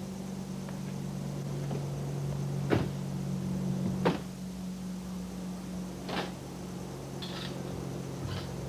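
A steady low mechanical hum, with two sharp knocks about a second and a half apart and a few softer clicks later.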